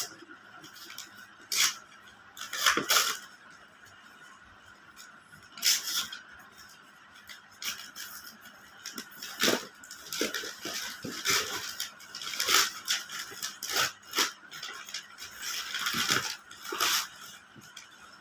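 Gift packaging being handled and opened: irregular crinkling and tearing with scattered clicks, knocks and rattles, busier in the second half.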